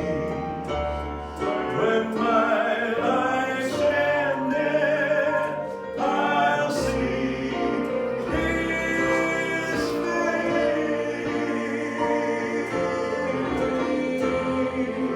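Gospel vocal group singing in harmony over musical accompaniment, with long held notes and a steady bass.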